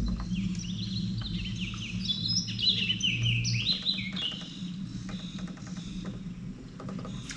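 Songbirds chirping: a quick, dense run of short falling whistled notes for the first four seconds or so, then thinning out, over a steady low hum.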